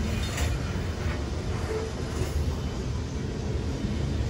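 Freight train of covered hopper cars rolling past: a steady low rumble of steel wheels on the rails, with a few faint clicks.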